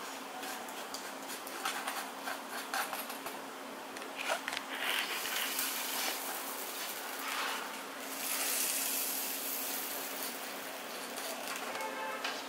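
Metal spoon spreading chutney onto toasted bun halves on a flat griddle: soft scrapes and small clicks, over a steady low hum.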